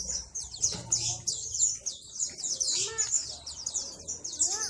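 Many small caged birds chirping and twittering at once, a dense unbroken chorus of quick high chirps.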